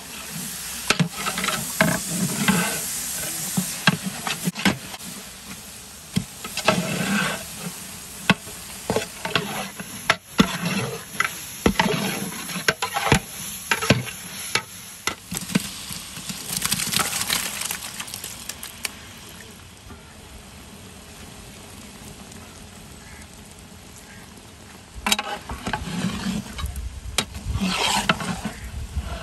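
Metal ladle stirring and scraping masala around a large aluminium pot, with the frying masala sizzling and the ladle clicking against the pot. The stirring pauses for a few seconds past the middle, leaving a low steady sizzle, then starts again near the end.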